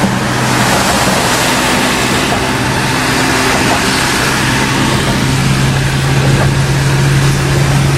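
Songthaew pickup-truck taxi on the move: its engine hums steadily under an even hiss of road and rain noise.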